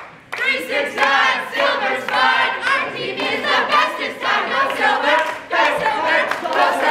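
A large group of voices chanting and singing a team cheer together, starting after a brief pause at the very beginning.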